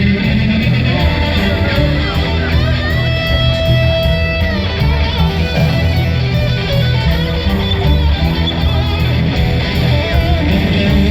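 Loud rock-style music with guitar and a steady, pulsing bass.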